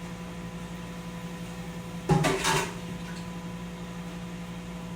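A steady hum from a running kitchen appliance, with a brief clatter about two seconds in.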